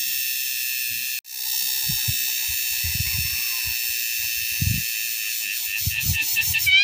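Insects calling in a steady, high-pitched drone, cut off for an instant about a second in. A run of short rising chirps starts up near the end.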